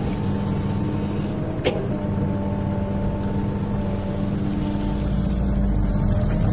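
XCMG excavator's diesel engine running steadily, with one sharp click about a second and a half in and a deeper rumble building from about five seconds in.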